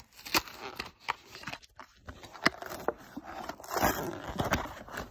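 A diecast car's plastic blister pack and card being pried open by hand: several sharp plastic clicks and crackles with short scraping and crinkling stretches.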